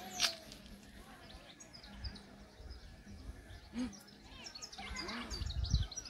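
Small birds chirping and twittering in woodland, with many short, high calls repeating throughout. There is one sharp click about a quarter of a second in.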